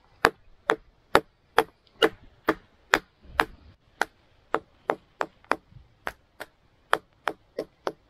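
A wooden branch used as a mallet knocks on the back of a Swiss Army knife to drive its blade down through a short beech log and split it. The wooden knocks are steady, about two a second.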